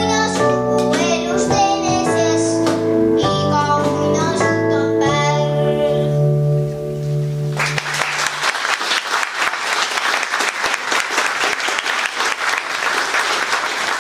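A boy sings into a microphone over an electric keyboard accompaniment, finishing on a held note about halfway through. The audience then breaks into applause that lasts to the end.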